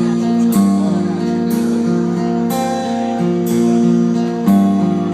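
Acoustic guitar strumming a chord progression as a song's instrumental intro, the chord changing about once a second.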